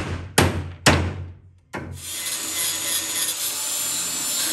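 Claw hammer striking steel frame tabs, three sharp blows in the first second. About two seconds in, a handheld angle grinder starts and runs steadily, its disc grinding on the steel with a thin high whine.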